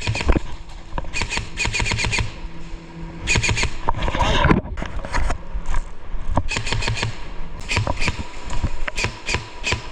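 Airsoft electric guns firing short bursts of rapid sharp clicking shots, several bursts a few seconds apart.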